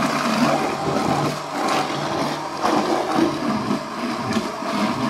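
Electric giò machine (a motor-driven bowl chopper) running steadily under its lid, grinding pork into smooth paste.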